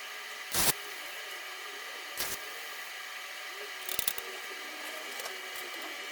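A steady mechanical hum and hiss, with a few sharp clicks about half a second, two seconds and four seconds in, and another near the end.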